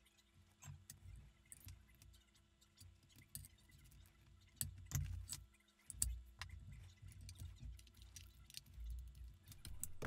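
Light clicks and small metallic rattles of a mic cable and its metal XLR connectors being handled, with irregular soft low bumps of handling.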